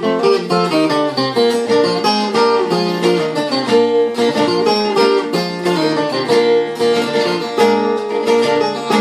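Viola caipira playing a quick plucked instrumental introduction to a Brazilian caipira song, with a steady run of picked notes.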